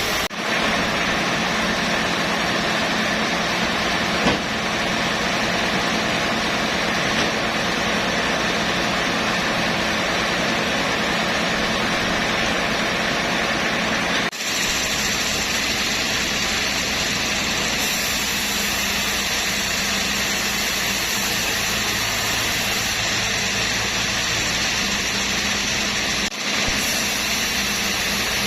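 Sawmill machinery running steadily, an even engine drone with hiss. The sound breaks off and changes abruptly about halfway through and again near the end.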